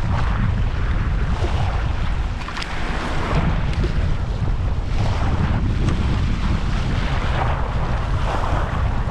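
Wind buffeting the microphone in a steady low rumble, over small waves washing across shallow coral reef, their hiss swelling and fading every second or two.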